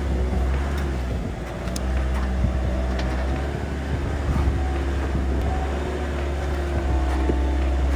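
A motor vehicle's engine running steadily with a low, even drone, with a few light clicks or knocks over it.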